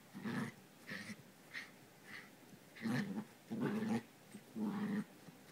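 Toy poodle puppy play-growling and yapping in about seven short bursts, spaced roughly half a second to a second apart.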